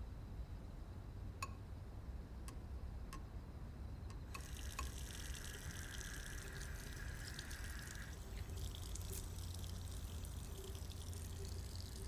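A few light clicks, then from about four seconds in a steady hiss of running or pouring water.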